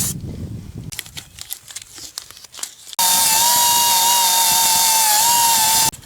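Scattered handling clicks and knocks, then about three seconds in a drill press starts drilling a hole through a metal shaft. It gives a loud, steady whine with a slightly wavering pitch over a hiss, and cuts off sharply just before the end.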